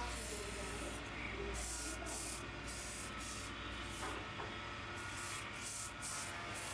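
Wood lathe turning an oak spindle while a hand-held chisel cuts it, the shavings coming off with a hiss in short, uneven strokes over a low running hum.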